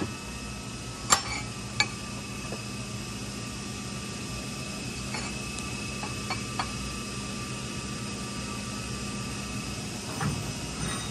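Steady shop hum with a few short, sharp clinks and taps, as of metal parts being handled: two about a second apart near the start and a few lighter ones midway.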